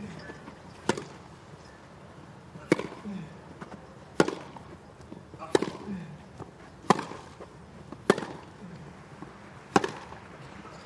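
Tennis rally: the ball struck back and forth by racquets, seven sharp hits about one every one and a half seconds.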